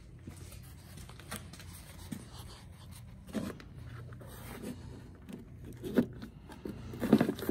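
Faint scraping and rubbing of a hand and camera moving against plastic panels and wiring, with a few soft knocks, over a low steady hum.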